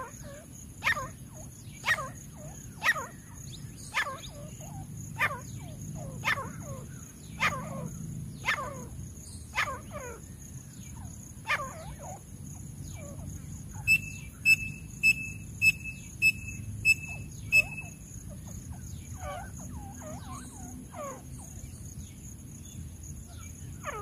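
Grey francolins calling: a run of loud, sharp calls falling in pitch, about one a second for the first twelve seconds. Then comes a quicker series of about seven higher, level-pitched notes, followed by fainter scattered calls.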